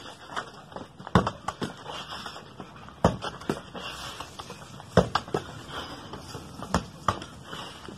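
Footsteps scuffing and stamping on bare dirt: irregular sharp knocks every second or two, with softer shuffling between.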